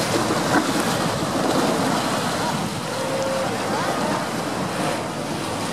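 Steady wash of surf and wind on the microphone, with faint chatter of people in the background.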